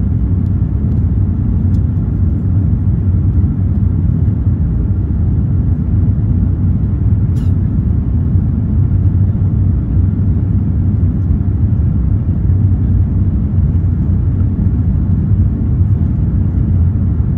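Steady low roar inside the cabin of an Airbus A350-900 climbing out after takeoff: its Rolls-Royce Trent XWB engines and the rushing airflow. A single faint click sounds about halfway through.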